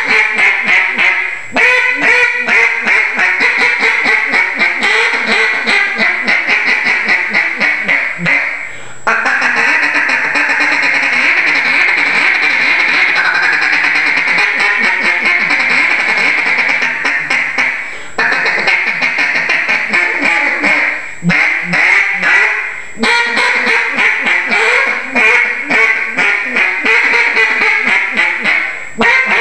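Dymond Wood single-reed duck call blown in a continuous run of mallard calling, mostly quick choppy notes with a long unbroken fast run in the middle. The calling stops briefly a few times to breathe.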